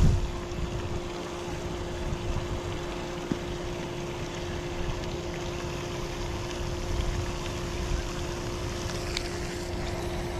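Wind buffeting the microphone, over a steady electric hum, with a faint click about three seconds in.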